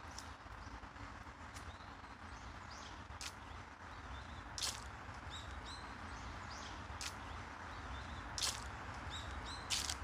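Small birds chirping in short repeated calls over a steady background hum, with a few sharp clicks or taps now and then, the loudest about halfway through and near the end.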